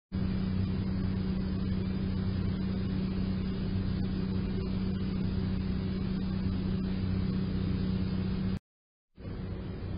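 A steady low electrical or motor hum with a single unchanging pitch. It cuts off suddenly about eight and a half seconds in, followed by a brief silence and then fainter steady background noise.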